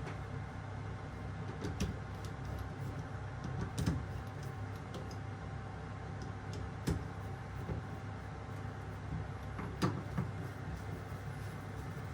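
Four short, sharp knocks and clicks, a few seconds apart, of tools and parts being handled during kitchen faucet installation, over a steady low hum.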